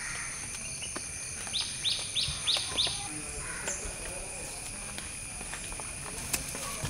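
Outdoor garden ambience: a bird calls a quick run of five descending chirps about a second and a half in, over a steady high-pitched insect drone.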